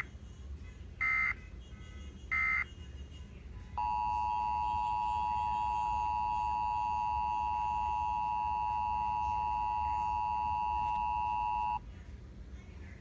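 Emergency Alert System test: two short buzzy data bursts of the header, then the steady two-tone EAS attention signal, which holds for about eight seconds and cuts off abruptly.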